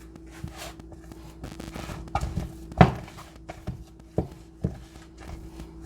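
A turning stick knocking against the dish as it stirs and folds thick pounded yam dough: a string of irregular knocks and thuds, the loudest about three seconds in.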